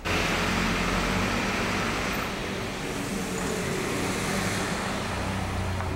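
Street traffic: a car engine running with a low hum under a steady rushing road noise. It starts suddenly.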